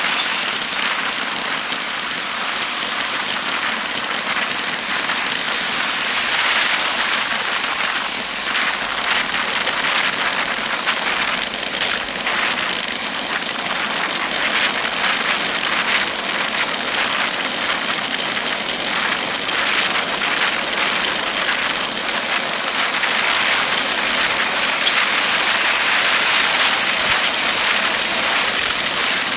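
Steady hissing rush of wind and road noise on a handlebar camera of a road bike riding fast among highway traffic, a little louder near the end as a container truck draws alongside.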